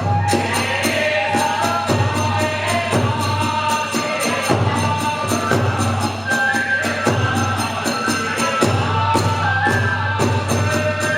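Kagura hayashi accompaniment: hand cymbals clashing in a steady, rapid beat over drums, with a high flute melody that climbs in steps during the second half.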